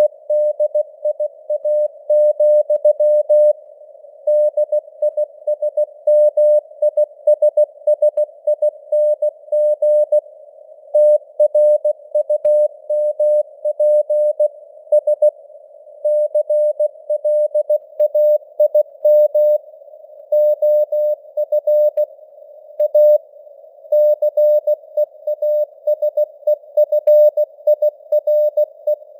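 Morse code (CW) sent at 16 words per minute: a single pitched tone keyed on and off in dots and dashes with short gaps between words, over a narrow band of simulated radio hiss. The signal strength varies with simulated fading (QSB).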